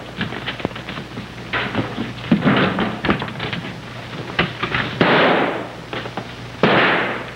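Scuffle on a wooden porch: a string of knocks and thuds, with four louder noisy crashes spread through.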